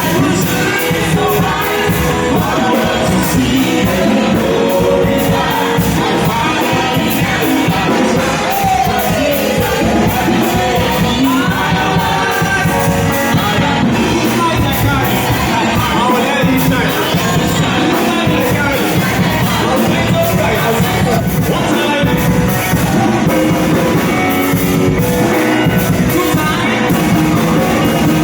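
Live church praise-and-worship music with a band and singing, loud and steady, in a large hall.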